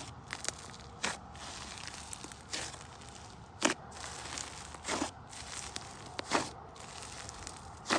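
Thick, foamy slime squeezed and kneaded by hand, squelching and crackling as trapped air pockets pop, in about half a dozen separate squeezes one to one and a half seconds apart.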